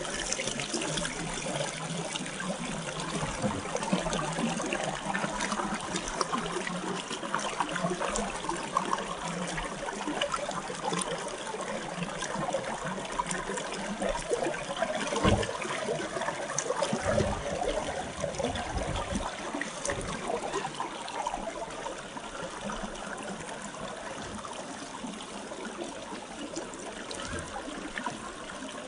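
Shallow river water trickling over rocks, with a few low thumps around the middle.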